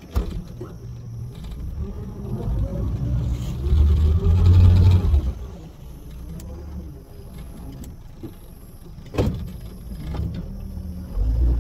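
Suzuki 115 four-stroke outboard motor running as the boat moves along a creek: a low rumble that swells to its loudest about four to five seconds in, then eases off. There is a sharp knock about nine seconds in.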